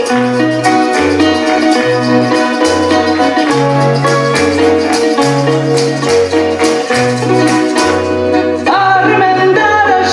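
Lively Portuguese folk tune played on Portuguese guitar, acoustic guitar and accordion, over an alternating two-note bass, with tambourine and shaker marking the beat. A singing voice comes in near the end.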